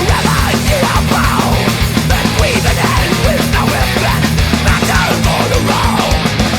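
Loud heavy rock music from a band, with a fast, dense beat and a thick low end.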